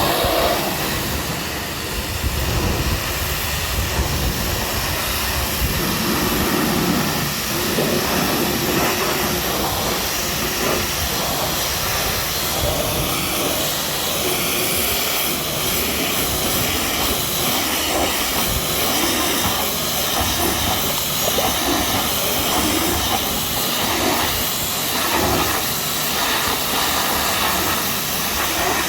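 High-pressure washer jet spraying water onto a muddy truck, a steady loud hiss with shifting splatter, starting abruptly at the outset.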